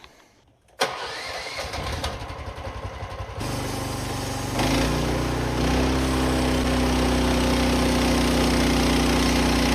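The engine of a manual portable bandsaw sawmill being started: it cranks for a couple of seconds, catches, and is then brought up to a steady running speed in two steps.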